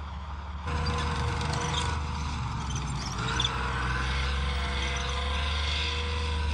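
Chieftain main battle tank on the move: its Leyland L60 multi-fuel two-stroke engine running and its tracks clattering, with a few thin whining tones over it. It gets louder about a second in.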